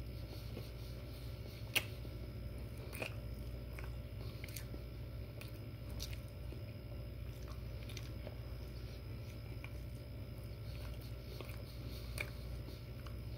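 A man chewing a mouthful of breakfast sandwich with his mouth open, with scattered wet mouth clicks, one sharper about two seconds in. A steady low hum runs underneath.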